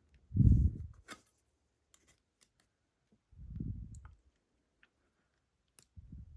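Scattered small metallic clicks and ticks from a lock pick working against the parts of a disassembled slider-lock core while prying at its retaining C-clip. Three short, muffled low bumps from handling the lock stand out: one near the start, one around the middle and one at the end.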